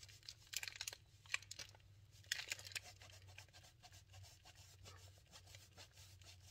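Block of Parmesan cheese grated on a handheld rasp grater: a run of quick, faint scraping strokes, busiest in the first three seconds and fainter after.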